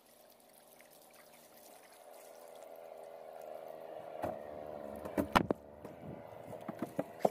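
Tohatsu outboard motor running steadily on an approaching dinghy, growing louder as it comes closer, with water lapping at the hull. From about four seconds in come several sharp knocks as the boat's bow reaches the bank.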